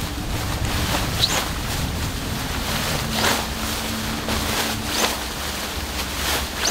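Tent fabric rustling and swishing as it is shaken and gathered up by hand: about four separate swishes a second or two apart, over a steady low rumble of wind on the microphone.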